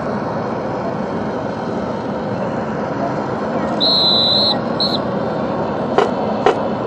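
Two blasts on a drill whistle, a long one about four seconds in and a short one just after, over steady outdoor noise. Two sharp clacks follow near the end.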